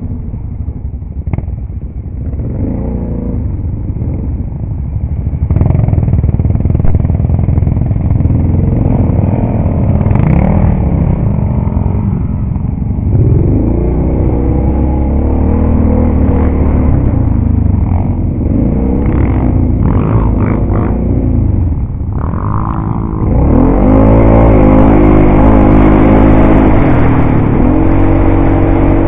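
ATV engine running under changing throttle while riding a rough dirt and grass trail, its pitch rising and falling, with a louder acceleration about three-quarters of the way through.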